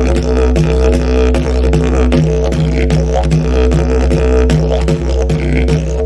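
Background music with a deep, steady drone and a regular beat.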